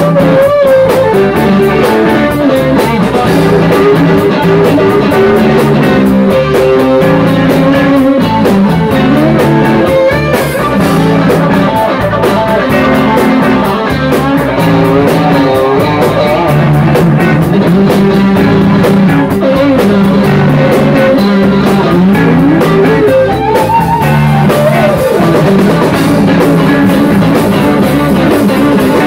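Live rock band playing loudly: electric guitars, a Rickenbacker-style and a Stratocaster-style, play lead lines with bent notes over bass guitar and drum kit.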